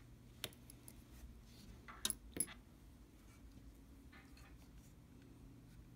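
Light clicks and taps of small hard objects being handled on a workbench: one click about half a second in and a quick cluster of louder clicks about two seconds in, then faint rustling, over a faint steady low hum.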